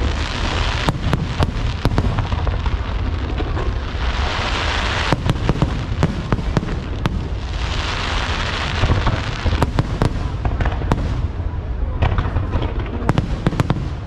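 Aerial fireworks going off in quick succession: many sharp bangs over a constant low booming rumble. Swells of hiss rise at the start, about four seconds in and about eight seconds in.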